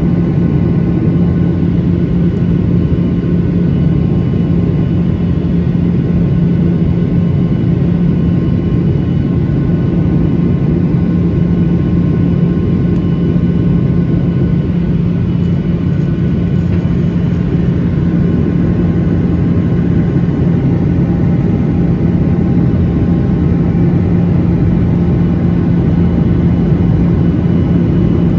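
Steady cabin drone of a Boeing 737-900ER in flight: its CFM56-7B engines and the airflow over the fuselage, heard from inside as a constant low hum with faint steady whines above it.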